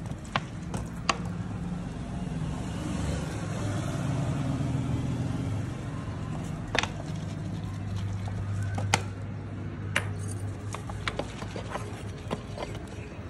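Several sharp metallic clicks and clinks as motorcycle clutch parts (pressure plate, hub and basket) are handled and rinsed with oil over a basin, over a steady low workshop hum.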